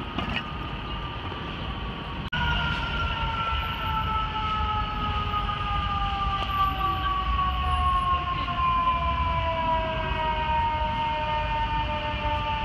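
A fire truck's mechanical siren winding slowly down in pitch over about eight seconds, above steady city traffic noise. The siren jumps suddenly louder about two seconds in.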